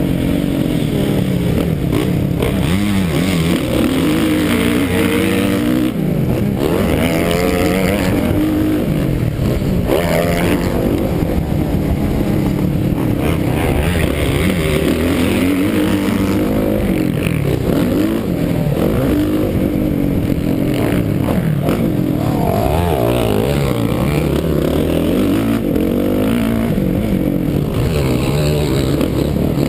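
Dirt bike engine revving up and down without a break as it is ridden hard over a rough dirt track, the pitch climbing and dropping with throttle and gear changes, heard close up from a camera mounted on the bike.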